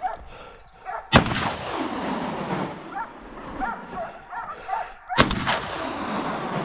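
Two shotgun shots about four seconds apart, each a sharp blast followed by a long echo rolling back off the surrounding hillsides.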